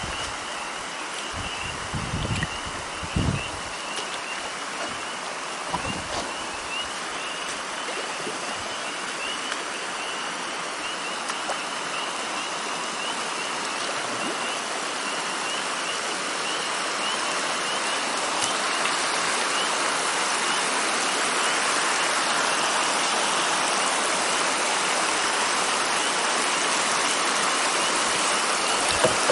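Water rushing over and through a beaver dam of sticks, a steady splashing flow that grows louder over the last third as the canoe comes up to the dam.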